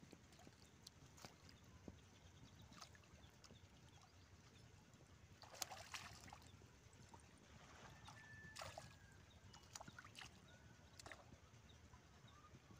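Near silence with faint splashing and trickling of shallow water as hands grope for fish, a few splashes clearer about halfway through.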